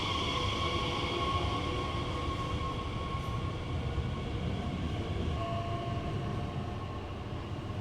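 Train in a railway station: a steady low rumble with high squealing tones held above it, the squeal of wheels or brakes.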